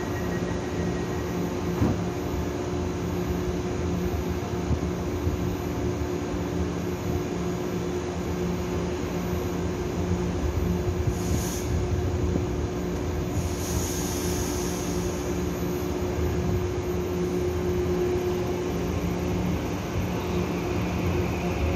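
Taiwan Railway electric multiple unit standing at the platform, its onboard equipment humming steadily. There are two short hisses of air around the middle, and near the end a rising whine as the train starts to move off.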